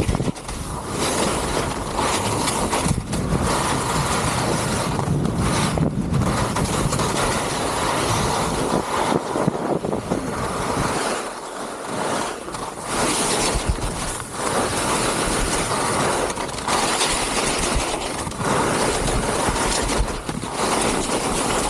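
Touring skis hissing and scraping over snow during a fast descent, with wind rushing over the microphone. The noise eases off briefly about eleven seconds in, then picks up again.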